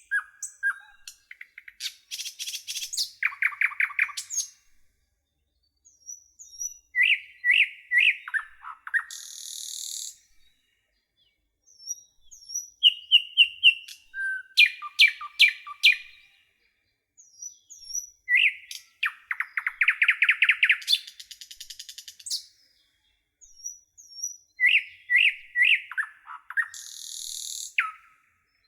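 Songbirds chirping and trilling in phrases of quick, high notes a few seconds long, each followed by a short pause. The phrases repeat about every six seconds.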